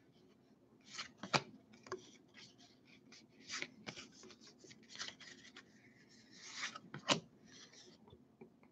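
Topps Heritage baseball cards sliding and rubbing against one another as they are flipped through by hand: a run of faint, short scrapes and flicks, with a sharper snap about a second and a half in and another about seven seconds in.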